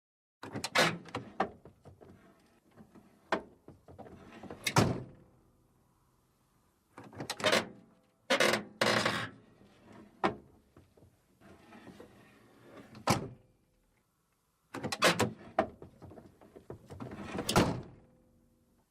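Three separate edited passes of clicks, knocks and thuds, like a door or drawer being handled, each cut off into dead silence. Each pass holds several sharp clicks and a louder thud, the loudest near the end of the first and last passes.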